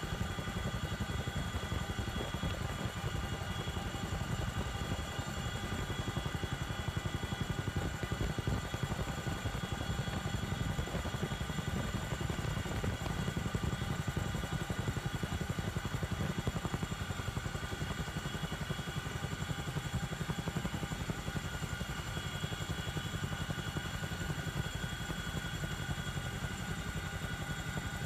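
Helicopter in flight, heard from aboard: a steady low rotor and engine rumble with a fast flutter, overlaid by several steady high whines.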